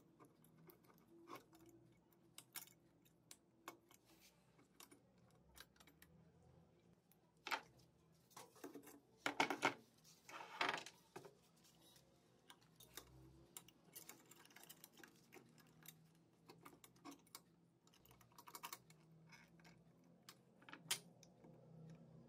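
Light clicks and clinks of small metal lantern parts being handled, with a cluster of louder clattering and scraping from about eight to eleven seconds in.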